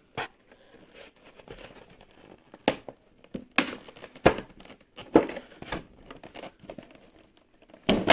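Packaging crinkling and rustling as a keyboard is unwrapped from its box, with a handful of short, sharp handling noises spread through it.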